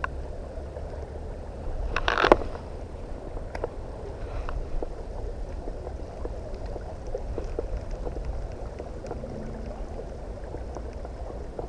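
Fast river current running steadily, with a brief louder rush about two seconds in and a few faint clicks scattered through.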